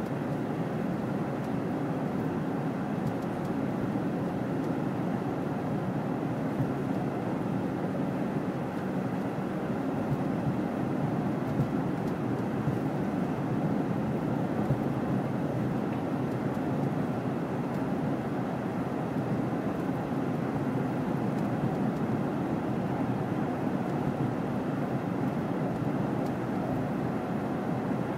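Car driving: steady road and engine noise heard from inside the cabin.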